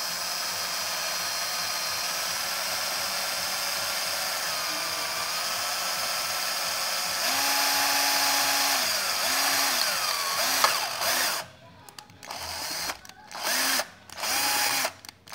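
Cordless drill boring a hole through a cut-down metal spoon pressed onto a wooden block, the motor running steadily under load, its sound changing about seven seconds in. Near the end the drill is run in several short trigger bursts, stopping and starting.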